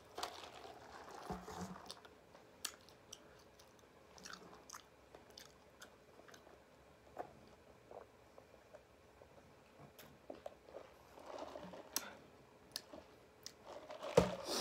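A person chewing food close to the microphone, with wet mouth sounds and scattered small crunches and clicks, and a louder bite near the end.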